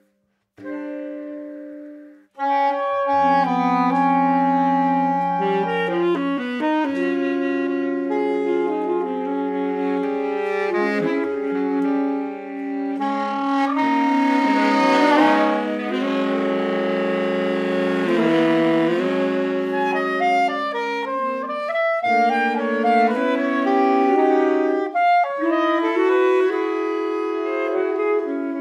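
Saxophone quartet (soprano, alto, tenor and baritone) playing contemporary chamber music: long held notes overlapping into sustained chords. After a short note and a brief pause near the start, all four voices enter about two seconds in, with the baritone low underneath. The texture grows denser and noisier in the middle before thinning again.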